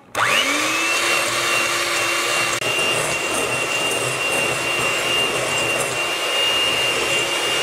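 Electric hand mixer beating egg yolks and sugar in a glass bowl. The motor spins up with a quickly rising whine in the first half second, then holds a steady whine over the whir of the beaters in the batter.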